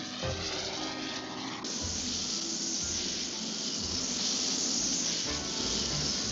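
Cartoon orchestral score, joined about two seconds in by a steady hiss that carries on under the music.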